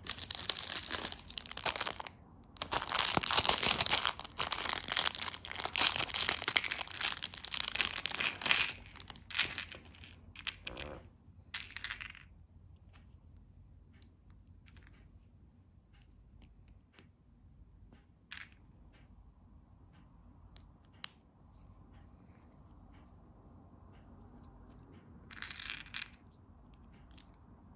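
Thin plastic bag crinkling and tearing open for about the first twelve seconds. Then small plastic minifigure parts click as they are pressed together, with a short rustle near the end.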